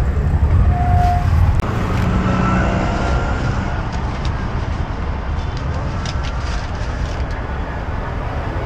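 Road traffic noise: vehicle engines running with a steady low rumble, and a short horn beep about a second in.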